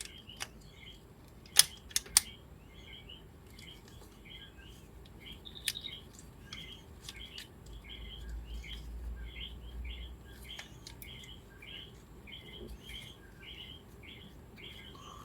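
A bird chirping over and over, about two short chirps a second, with a few sharp clicks and snaps about two seconds in from the plastic parts of an Optimus Primal action figure being moved.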